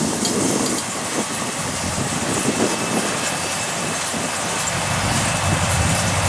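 Kubota rice combine harvester's diesel engine running steadily.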